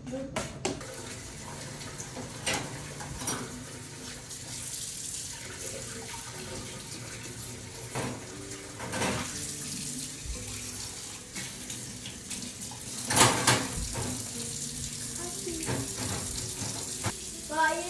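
Kitchen faucet running steadily into the sink, a continuous water hiss, with a few sharp clinks and knocks of cups and utensils on the counter.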